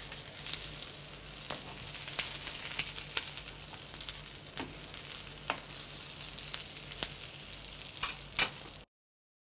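Aloo tikki potato patties sizzling as they shallow-fry in oil on a tawa, with scattered clicks and scrapes of a steel spoon turning them over. The sound cuts off abruptly near the end.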